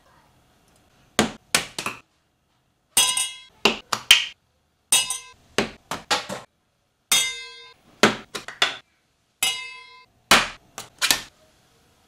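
Sharp clinks and taps of a spoon and spice jars against a stainless steel mixing bowl as seasonings are added. Some strikes leave a brief metallic ring. The knocks come in several quick clusters of two to five, with short quiet gaps between them.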